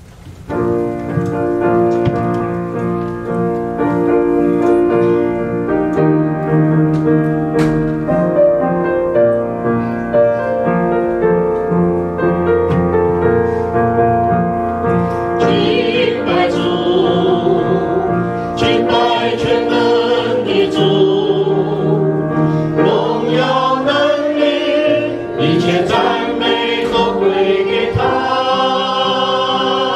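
Piano plays the introduction to a Chinese worship song. About halfway through, a small group of worship singers on microphones joins in, singing the hymn with the piano.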